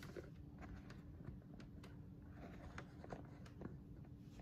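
Faint, scattered light taps and knocks of containers being set down and shifted on a pantry shelf, over a low steady hum.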